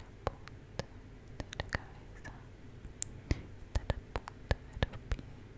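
Close-up ASMR mouth sounds and soft whispering: about fifteen sharp, wet clicks scattered irregularly, with faint breathy whispers between them.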